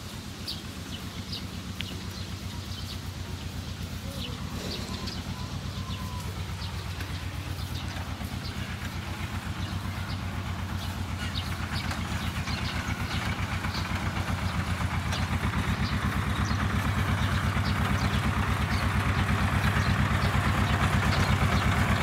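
Diesel tractor engine running with an even, regular firing beat, drawing closer and getting steadily louder.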